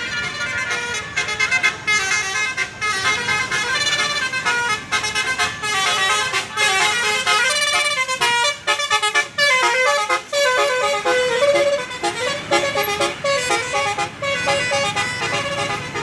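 Bus's multi-tone 'telolet basuri' musical horn playing a fast tune of short, stepped notes.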